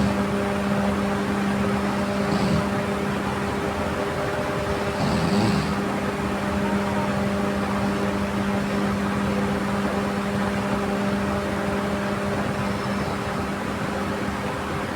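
Steady machine hum with a constant hiss, like a fan or air conditioner running, with a few faint brief sounds in the first six seconds.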